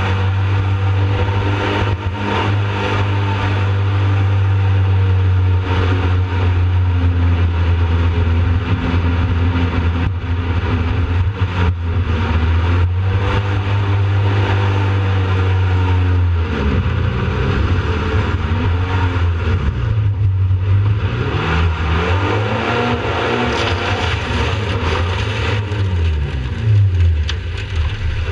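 Jet boat engine running at a steady cruise, with the rush of water beneath the hull. About halfway through, the engine pitch starts rising and falling repeatedly as the throttle is worked.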